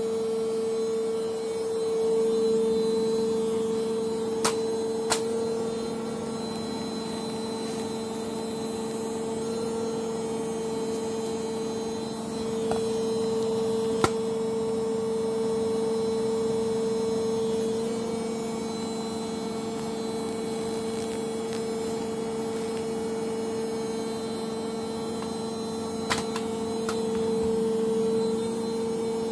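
Samsung Ecobubble WW80J5355MW front-loading washing machine on its spin cycle, the drum spinning with a steady high motor whine and hum that swells slightly a couple of times. A few brief sharp ticks sound over it.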